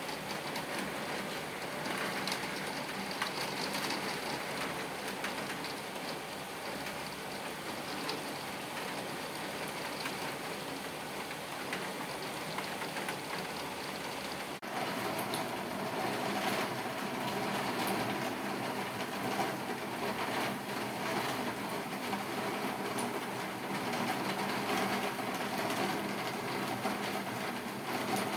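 Heavy rain pouring steadily in a downpour, a dense hiss of drops on surfaces. About halfway through the sound cuts abruptly to a louder, fuller downpour.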